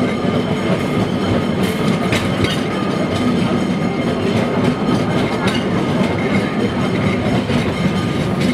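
Electric street tram running along its rails, heard from inside the car: a steady rumble and rattle of the car body and wheels, with a few sharp clacks.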